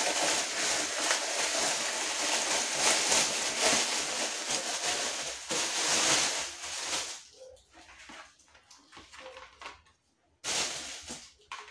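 Clear plastic wrap crinkling and tearing as it is pulled off a stack of plastic food storage containers, for about seven seconds. After that come lighter clicks and knocks of the plastic containers and their lids being handled.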